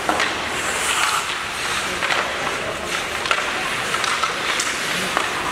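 Ice hockey play on a rink: skates scraping and hissing on the ice, with scattered sharp clacks of sticks and puck, the loudest a little past halfway.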